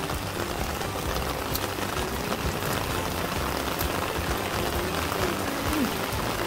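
Steady rain falling on garden plants and surfaces, an even hiss of many drops.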